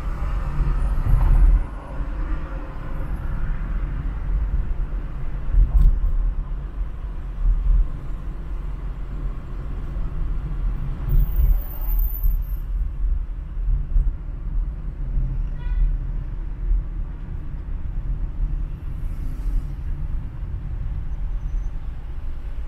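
Road and traffic noise from a car driving through city streets: a steady low rumble of engines and tyres, with a few louder swells, a brief high whistle about halfway and a short run of quick ticks a little later.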